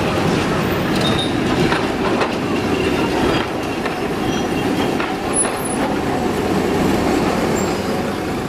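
Older green articulated tram pulling away and rolling over track points at a street junction: a steady rumble of motors and running gear, sharp clicks as the wheels cross rail joints in the first few seconds, and a few brief high wheel squeals on the curve.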